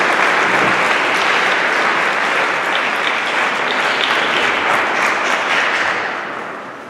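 Audience applauding after a song, a dense spread of many hands clapping that dies away over the last second or so.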